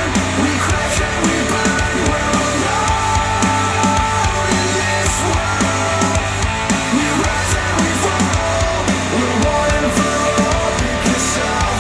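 Rock music with guitar and a steady beat, played back through Polk Audio bookshelf speakers.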